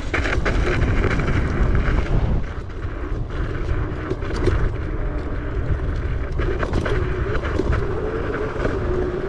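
Boyueda electric scooter riding off-road over rough dirt: wind buffets the microphone and the tyres rumble, with scattered knocks and rattles from bumps and a faint steady motor whine in the second half.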